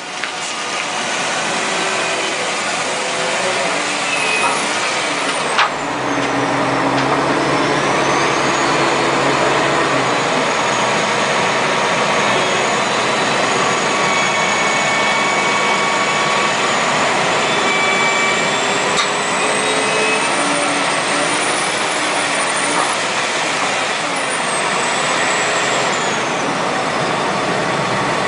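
Wheel loader's diesel engine and hydraulics working under heavy load: a loud, steady mechanical din with faint high whines that rise and fall.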